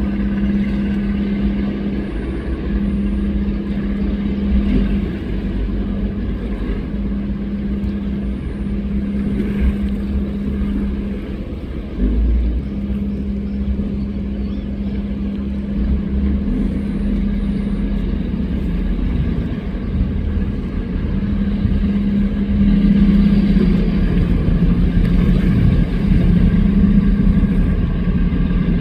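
Speedboat engines running at a steady pace under way, a held engine drone with water and wind noise beneath it; about 23 seconds in it grows louder while the tone drops slightly.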